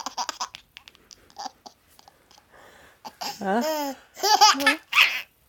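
A 10-month-old baby laughing, set off by a sneeze: a run of quick giggles at the start, then louder drawn-out laughing vocal sounds that bend in pitch from about three seconds in.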